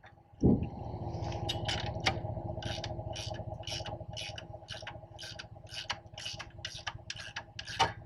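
Ratchet wrench with a three-quarter socket worked in quick short strokes on a trailer bolt, clicking in a steady run of about three strokes a second. A thump about half a second in is followed by a low rumble.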